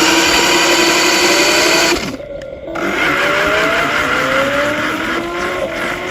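Remote-control toy car motors whining at speed, the pitch climbing in repeated sweeps like accelerating, with a short drop-off about two seconds in before it picks up again.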